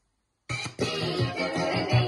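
A vinyl record playing on a Sony PS-LX35P turntable through the stereo system's speakers: music starts abruptly about half a second in, once the stylus is on the record, and plays on.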